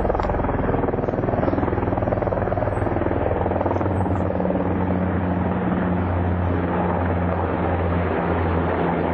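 Helicopter flying over: a steady, loud drone of engine and rapid rotor chop.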